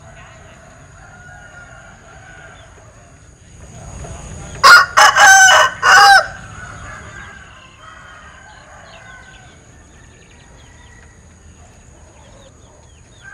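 A linh kê rooster crowing once, loudly, about four and a half seconds in, its crow broken into three parts, the odd three-voiced crow of this bird. Faint clucking of chickens before and after.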